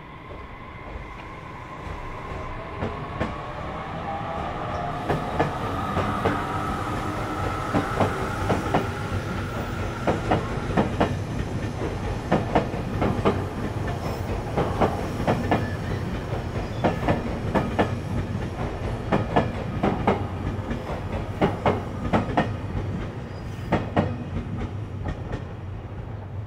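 JR Kyushu Series 817 electric train running past: its motor whine rises slowly in pitch over the first ten seconds or so, and the sound grows louder. From about five seconds in, the wheels give a steady run of clickety-clack over the rail joints.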